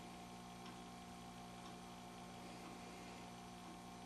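Near silence with a faint, steady electrical hum (room tone).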